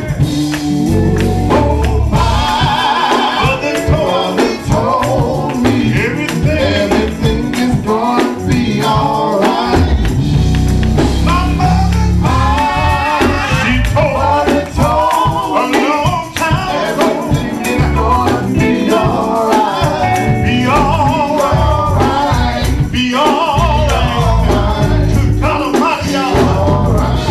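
Live gospel music: a male lead singer singing into a microphone, backed by a band with electric guitars and a heavy bass line.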